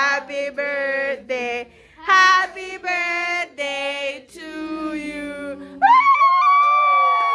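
People singing a birthday song as a run of short sung notes, then one long held note starting about six seconds in.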